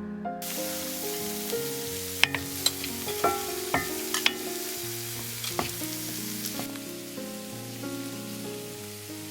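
Food sizzling in a hot pan, with a handful of sharp clicks of a utensil striking the pan about two to four seconds in; the sizzle starts suddenly just after the start and thins out about two-thirds of the way through. Soft background music plays underneath.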